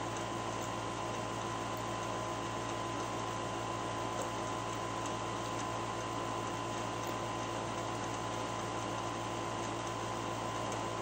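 Steady room hum and hiss with a faint constant high tone, unchanging throughout.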